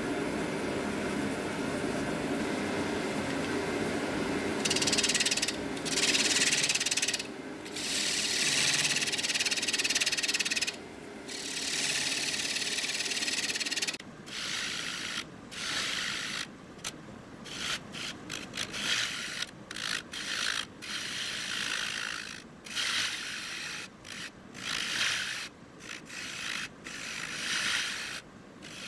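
Wood lathe spinning a segmented bowl blank of glued-up mixed hardwood rings, with a turning tool cutting its outside: at first only the lathe's steady running hum, then about five seconds in a hissing, scraping cut begins. From about halfway on the cut comes in many short passes with brief breaks between them.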